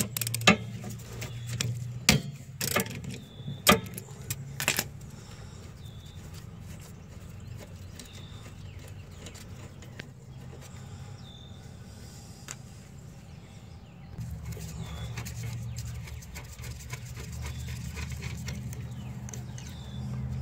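Sharp metal clicks and clinks of a ratchet and socket working loose a rear brake caliper bolt, clustered in the first few seconds, then quieter handling. A low steady hum comes in about two-thirds of the way through.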